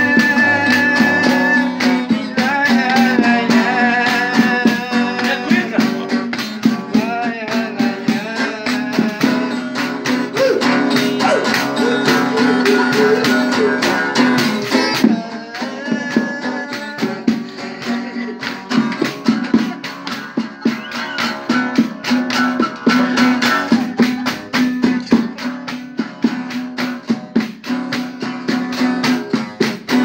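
Acoustic guitar strumming a steady rhythm while a cuíca friction drum plays over it, its gliding, squeaky pitched notes rising and falling.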